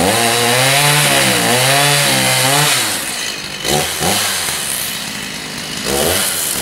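Two-stroke chainsaw cutting a felling notch into a tree trunk. The engine pitch repeatedly sags and recovers as the chain bites, drops lower and quieter about halfway through, then revs back up near the end.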